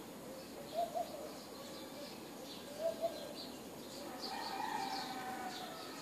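Pigeons cooing: two short double coos, then a longer drawn-out coo near the end, with small birds chirping high above them throughout.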